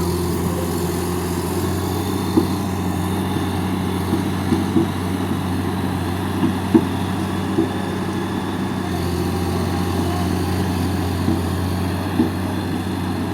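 Heavy diesel engine running steadily at constant revs, with a few short clanks and knocks scattered over it.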